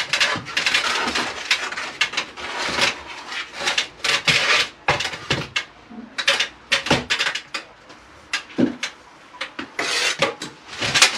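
Hand tools scraping and rasping against brick and mortar in irregular strokes, with a few short sharp knocks and a brief lull about eight seconds in.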